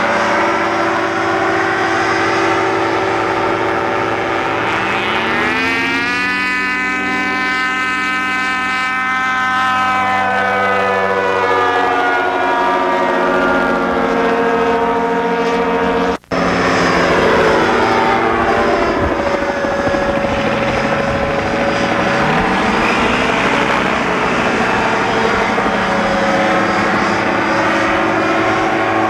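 Propeller engines of low-flying ultralight aircraft, an open-frame gyrocopter and a high-wing ultralight airplane, droning as they pass overhead, the engine pitch sliding down and back up several times as each goes by. The sound cuts out suddenly for a moment a little past halfway.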